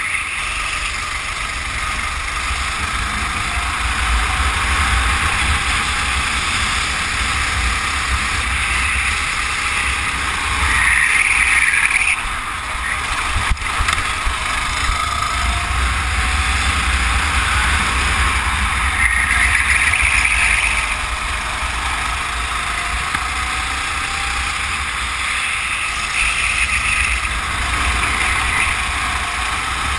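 Go-kart engine running hard during a race, its pitch rising and falling with the throttle and louder in two stretches, over a steady low rumble of wind on the microphone.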